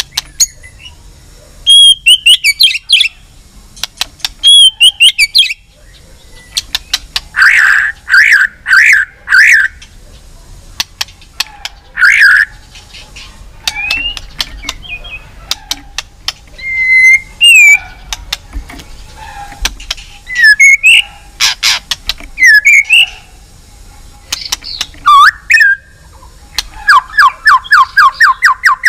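White-rumped shama singing loudly: varied whistled phrases broken by sharp clicks, ending in a fast run of repeated notes, about six a second.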